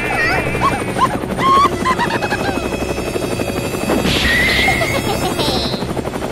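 Cartoon helicopter rotor sound effect, a steady rapid chopping, with short wobbling and sliding effect tones laid over it and a rising buzzy tone about two-thirds of the way through.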